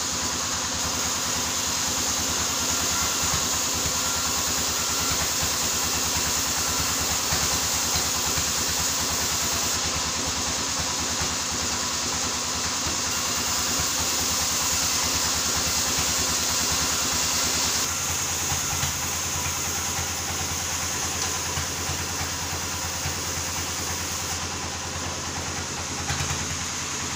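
Sawmill saw running steadily under engine power while sawing split albasia wood: a constant low hum with a strong high hiss. About 18 seconds in, the hiss drops away and the low hum gets louder.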